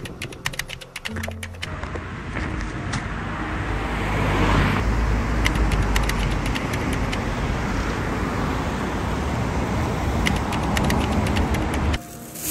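Steady vehicle and road noise with a deep rumble, building over the first few seconds and then holding, cutting off suddenly near the end. Background music plays underneath.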